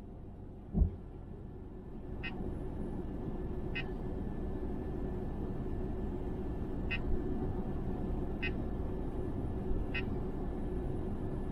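Cargo van running with a steady low rumble that grows louder about two seconds in, with a single thump near the start. Short high chirps repeat about every second and a half over it.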